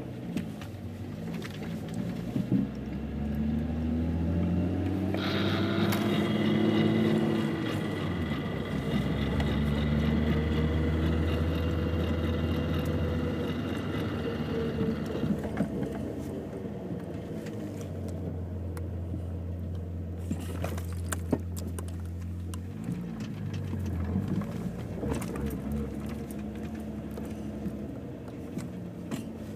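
VW Mk3 Jetta VR6 being driven, its engine revs rising and falling repeatedly, with sharp clicks coming now and then over the running. The owner puts the intermittent clicking and grinding at the driver's-side front wheel and suspects a worn CV axle or wheel bearing.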